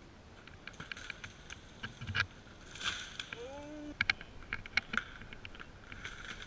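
Irregular clicks, crunches and sharp knocks of movement over rocky, twig-strewn forest ground. A short pitched call bends up and down a little past the middle.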